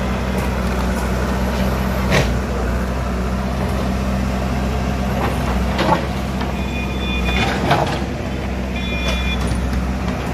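JCB backhoe loader's diesel engine running steadily as its bucket works through demolition debris, with sharp crashes of broken wood and concrete at about two, six and seven and a half seconds in. A couple of brief high squeals come near the end.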